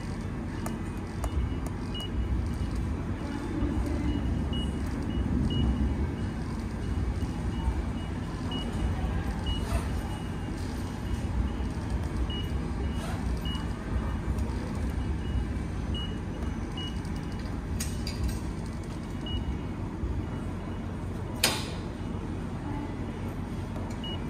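Steady low rumble of a station ticket hall, with faint short high beeps every so often and one sharp click near the end.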